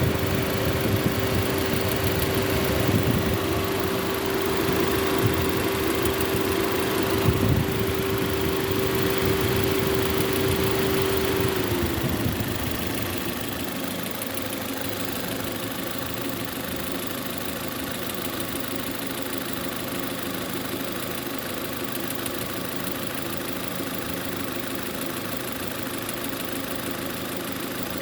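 Lada Granta's 11182 eight-valve engine idling warm with a knock that comes from the top of the valve cover, roughly at cylinder three; the knock shows only once the engine reaches about 60–70 degrees. A steady whine cuts off about twelve seconds in, and the engine runs on a little quieter.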